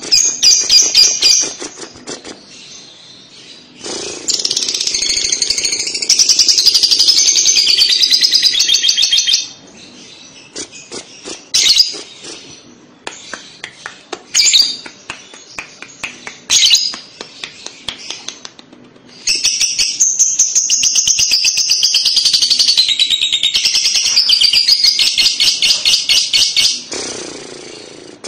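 Fischer's lovebird singing the 'kekek' (ngekek) chatter: long, fast, high-pitched chattering trills that run unbroken for several seconds, twice, with short chirps and clicks in between.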